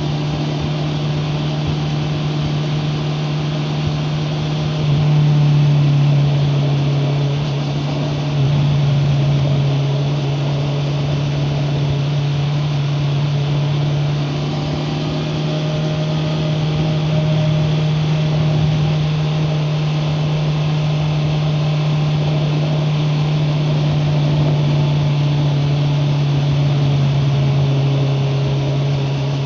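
Honda CBR650R's 649 cc inline-four engine running steadily under way, heard through a recorder carried in the rider's backpack. It steps louder about five seconds in and again about eight seconds in.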